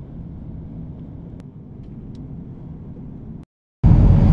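Steady low road and engine rumble heard from inside a moving car's cabin. It cuts off suddenly about three and a half seconds in, and after a brief silence a louder rumble starts.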